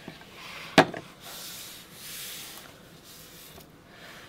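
A single sharp plastic knock just under a second in as the Citrus Slice border punch cartridge is put down on the cutting mat, followed by soft rubbing sounds of hands and card stock.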